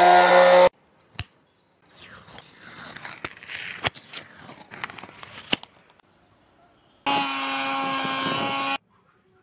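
A homemade scroll saw's motor running steadily and stopping abruptly just under a second in, followed by a click. Then comes a few seconds of crackling and rubbing with sharp ticks as protective film is peeled off a small acrylic sheet. Near the end the saw runs again with a steady hum for under two seconds and cuts off.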